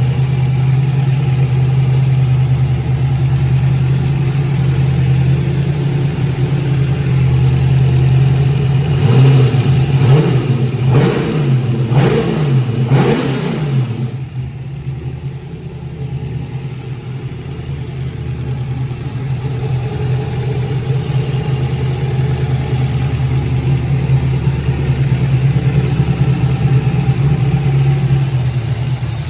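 V8 engine on freshly installed Holley Sniper dual-quad fuel injection, running on E85 and idling cold on its first start-up. About a third of the way in it is revved in a few quick blips, then drops back and settles to a steady idle.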